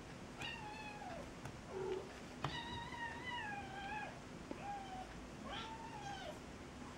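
Kitten meowing repeatedly: four high-pitched mews, the longest about a second and a half, with a brief lower call about two seconds in.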